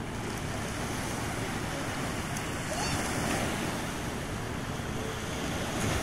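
Small sea waves breaking and washing up the sand at the shoreline: a steady hiss of surf.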